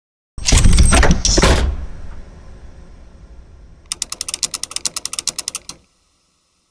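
Transformers robot transformation sound effect: a loud burst of heavy metallic clanking and shifting that tails off into a low rumble. It is followed by a fast run of mechanical clicks, about eleven a second, that stops suddenly.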